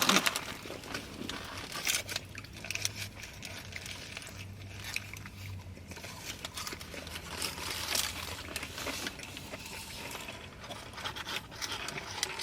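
Close-up eating sounds: chewing with scattered crunches, clicks and the crinkle and scrape of paper food wrappers and containers, over a faint low hum.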